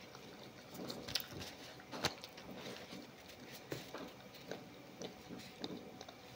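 A person chewing food with the mouth closed: soft, irregular wet smacks and small clicks, with one sharper click about two seconds in.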